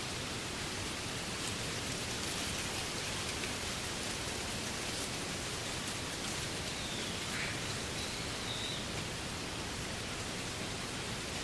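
Wind blowing through reeds: a steady, even rustling hiss.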